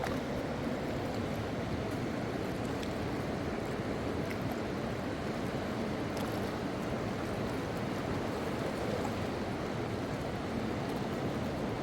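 Mountain river rushing, a steady even wash of flowing water.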